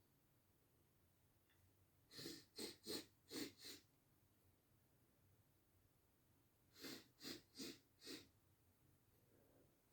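A person taking quick, sharp breaths in two runs: about five from two seconds in, then four more near seven seconds.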